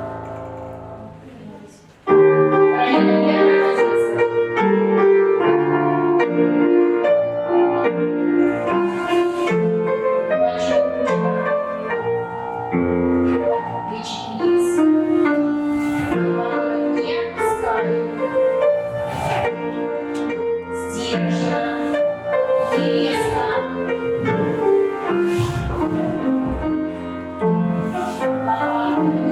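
Piano music accompanying a folk dance barre exercise. One piece fades out, and a new, lively one starts abruptly about two seconds in.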